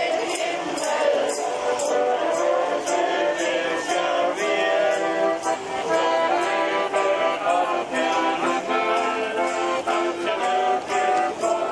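Band music with sustained melody notes over a steady beat of bright jingling strikes, about two to three a second.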